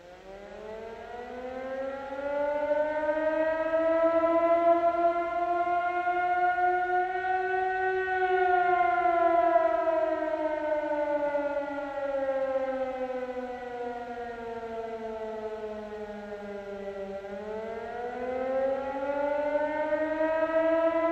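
A siren wailing: its tone fades in and rises slowly for about eight seconds, falls over the next nine, then starts rising again near the end.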